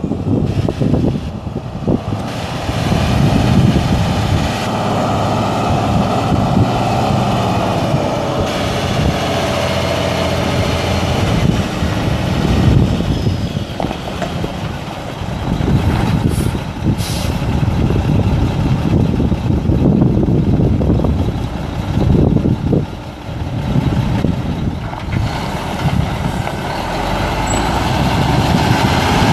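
Mack E7 12.0-litre inline-six turbo diesel of a 1997 Mack CH613 truck tractor running as the truck drives across a gravel lot, its engine note rising and falling with throttle. Two short high hisses sound about sixteen and seventeen seconds in.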